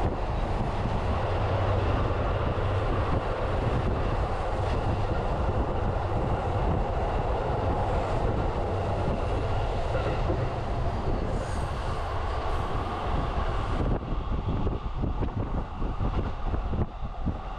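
Running noise of a JR Utsunomiya Line commuter train, heard from inside the car while moving at speed: a steady rumble of wheels on rail with a rushing hiss. Roughly two-thirds of the way through, a faint high whine rises briefly over it. Near the end the rumble turns more uneven and pulsing.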